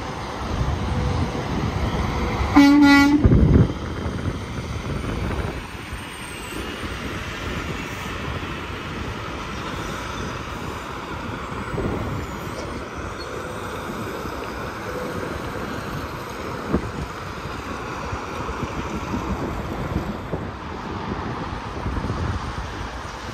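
Semi truck's air horn blasting once for about a second, over steady highway traffic noise.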